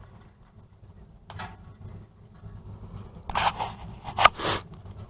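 A hand wire brush scrubbing the threads of a Dodge Caravan axle shaft. It makes several short scraping strokes, louder from about three seconds in, over a low steady hum.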